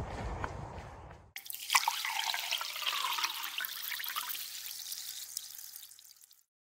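Background music fading out. After a cut, a bright trickling sound made of many small ticks starts suddenly and fades away over about five seconds.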